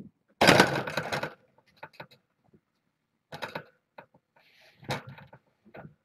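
Rustling and scuffing from a person shifting on a floor cushion and getting up, loudest in a burst about half a second in, followed by scattered light knocks and shuffles.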